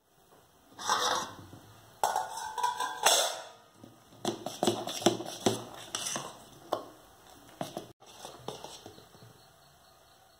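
Stainless steel kitchenware clattering and clinking. A perforated steel lid is lifted off a steel vessel and put down, then a steel bowl of dosa batter is handled and a ladle knocks against its sides, with a run of sharp clinks about four to seven seconds in.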